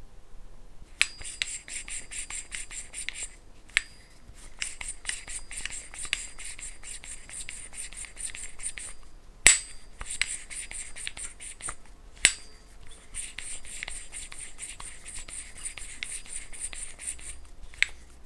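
A valve being lapped by hand into its seat in the aluminium cylinder head of a Jerry Howell V-twin model engine: a fine scratching as the valve is turned against its seat. It comes in runs of a few seconds broken by short pauses and a few sharp clicks, the loudest about halfway through. The lapping is meant to stop a slight air leak past the valve seat.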